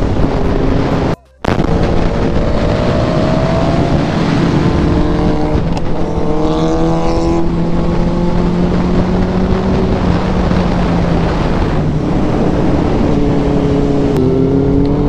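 Motorcycle engine pulling under way, its pitch slowly climbing and then stepping at gear changes, with steady wind rush on the bike-mounted microphone. The sound cuts out briefly about a second in.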